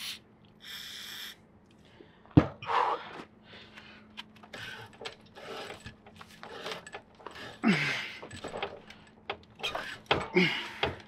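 A short spray from an aerosol lubricant can about a second in. Then a hand-ratcheted pipe threader clicks and scrapes in irregular strokes as its die is cranked to cut threads on steel gas pipe.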